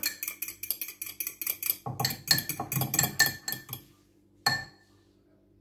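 Metal spoon stirring a honey vinaigrette in a small ceramic bowl, clinking rapidly against the bowl's sides for about four seconds, with one more clink a moment later.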